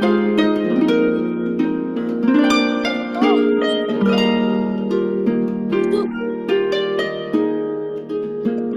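Harp music: plucked harp strings playing a flowing melody of several notes a second over a held low note, each note ringing and fading.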